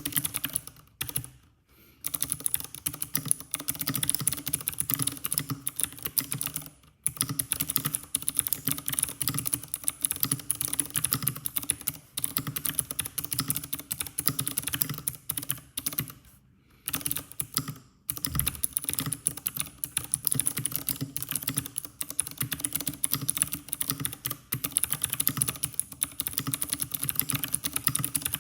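Fast typing on an IQUNIX F97 mechanical keyboard with blue switches: rapid, continuous clicky keystrokes, broken by a few short pauses.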